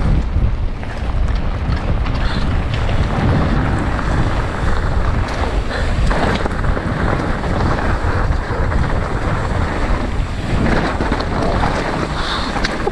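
Strong wind rumbling steadily across the microphone.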